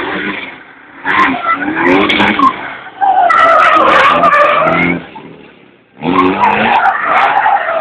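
Drift car sliding with its tyres squealing loudly and its engine at high revs. The squeal wavers in pitch and drops away almost completely about five seconds in, then starts again a second later.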